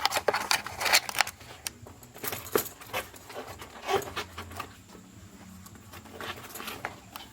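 Irregular light clicks and metallic clinks as a rubber clog fitted with a small metal chain is handled and put on.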